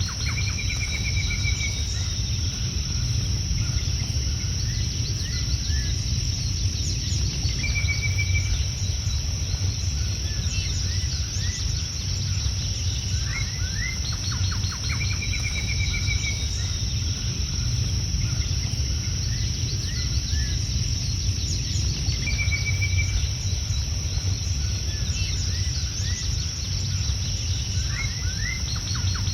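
A songbird repeating the same short song, a few rising chirps ending in a quick trill, about every seven seconds, over a steady high-pitched insect drone and a low rumble.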